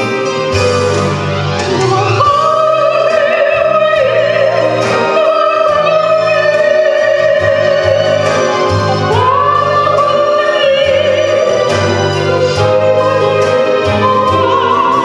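A soprano singing a Ukrainian song into a microphone, holding long notes with vibrato, over an instrumental accompaniment with a steady bass.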